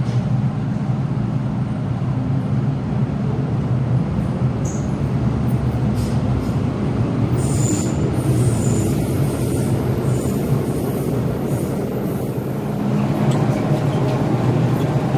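MTR Island Line train running in an underground station behind the platform screen doors: a steady low rumble, with brief high-pitched wheel squeals about halfway through.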